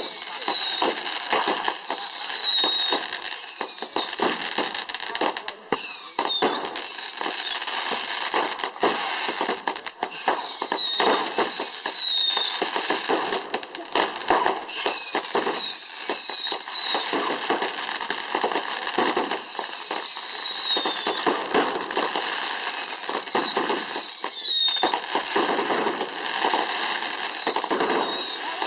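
Fireworks going off continuously: dense crackling, with many short whistles that each fall in pitch, often in pairs, one every second or two.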